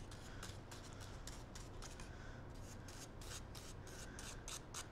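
Rubber cement brush rubbing in a quick run of short, soft scratchy strokes, about four a second, as the cement is spread on blue foam.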